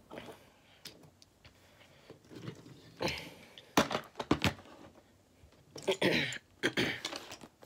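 Die-cast toy trains being handled on a wooden tabletop: a few sharp clacks and knocks with short scraping sounds, in two bursts about three seconds and six seconds in.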